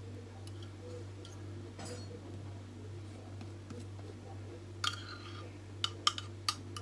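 A spoon clinking lightly against a cup while icing is spooned onto a cake, a few short clicks mostly in the second half, over a steady low hum.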